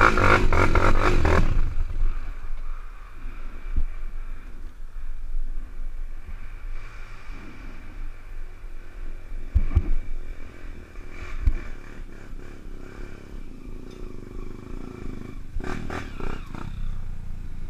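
Off-road trail motorcycle engine running, loud for the first second and a half and then lower, with knocks and clatter from the bike over rough ground and a brief louder burst near the end.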